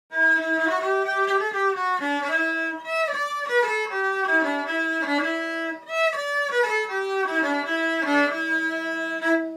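Intro music: a string melody in held notes over chords, sounding like violins, ending just before speech begins.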